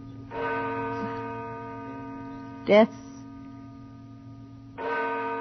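A clock bell striking midnight: two strokes about four and a half seconds apart, each ringing on and slowly fading, over a low steady hum.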